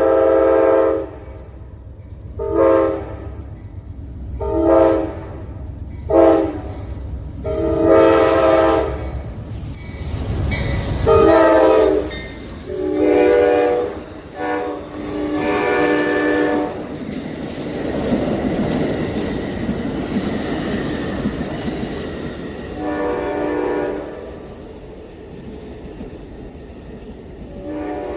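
Amtrak passenger train's diesel locomotive horn sounding a long irregular string of short and long multi-note blasts. About two-thirds of the way through, the loud rumble of the locomotives and cars rolling past takes over, and the horn sounds twice more near the end.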